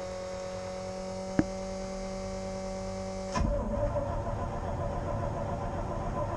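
A steady electrical hum, then about three and a half seconds in the 1988 GMC 6000's starter begins cranking the engine, which does not catch: a hard start on a weak battery.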